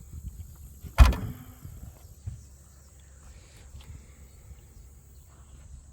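A single sharp knock about a second in, with a brief ringing tail, over a low steady background rumble.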